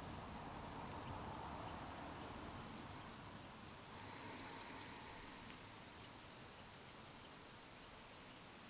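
Faint outdoor ambience: the steady rush of a river, with a few faint bird chirps about four seconds in.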